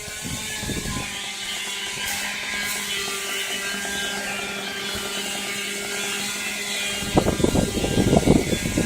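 A small engine running steadily at a high, even speed with a humming whine. About seven seconds in, a loud, rough low rumbling comes in over it.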